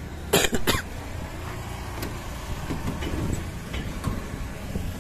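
Diesel dump truck engine idling with a steady low rumble. About half a second in there is a short cluster of sharp, loud noises.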